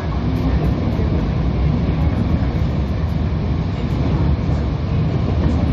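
Seoul electric commuter train running at speed, heard from inside the carriage: a steady low rumble of the wheels and running gear on the track.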